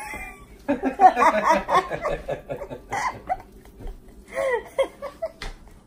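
A woman laughing heartily: a long run of laughs, then a shorter burst near the end.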